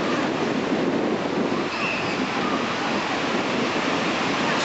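Ocean surf breaking and washing up a sandy beach: a steady rushing noise that keeps an even level throughout.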